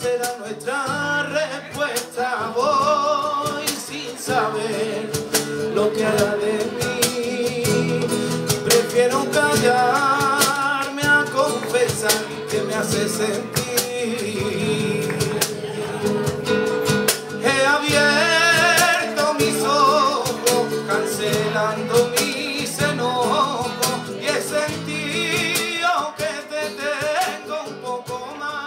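Live flamenco-style music: a man sings a long, wavering, ornamented vocal line over acoustic guitar strumming with sharp percussive strokes.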